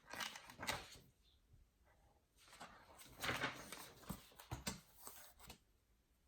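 Pet dog making noise in two spells: a short one under a second long at the start, then a longer one of about three seconds with sharp clicks through it.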